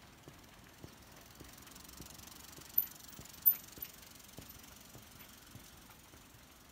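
Quiet street ambience: a faint steady background with scattered light ticks, and two brief, very high-pitched squeaks about three seconds in.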